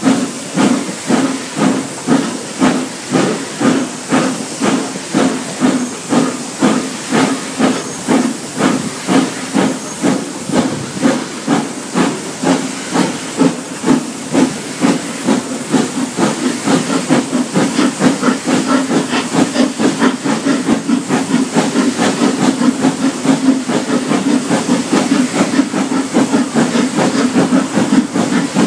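Steam locomotive No. 85 Merlin, a GNR(I) three-cylinder compound 4-4-0, working along the line with a steady, rhythmic chuffing exhaust beat, heard from just behind the engine. The beats come faster in the second half as it gathers speed.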